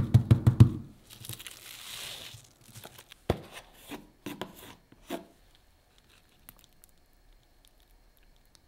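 Hands patting sushi rice down onto nori on a plastic-wrapped bamboo mat: a quick series of soft thumps in the first second. A tearing, crinkling rustle follows, then a sharp click and a few lighter knocks, and the last few seconds are nearly quiet.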